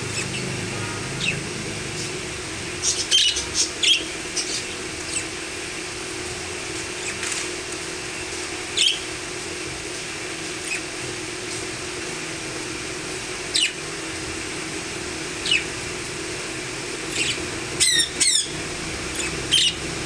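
Budgerigars giving short, scattered chirps and squawks over a steady low hum, with a quick flurry of calls near the end.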